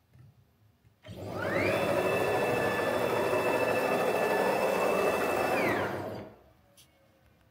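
Onefinity CNC router's stepper motors driving the gantry along its ball screws in a jog move. It is a whine that rises as the axis speeds up, holds steady for about four seconds, then falls as it slows and stops, over a rushing mechanical noise.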